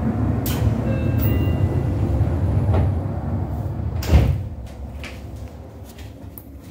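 Sliding passenger doors of a Seibu 2000-series commuter train closing and shutting with a thump about four seconds in. The loud low rumble from outside drops to a much quieter hum once they are shut.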